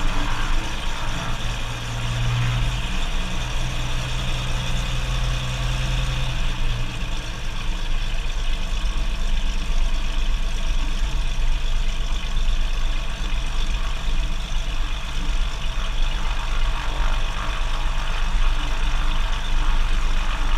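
Cessna 185 floatplane's six-cylinder piston engine and propeller running steadily while it taxis on the water, with a broad hiss of water rushing off the floats.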